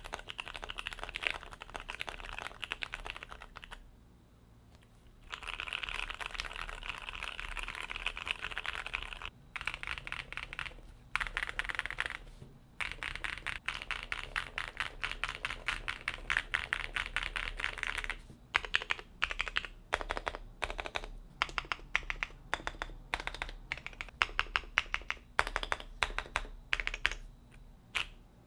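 Typing on a Vicious40 40% mechanical keyboard fitted with Jwick switches in an aluminium plate, with fast runs of keystrokes broken by brief pauses. After about two-thirds of the way through, the typing slows to separate, louder single key presses.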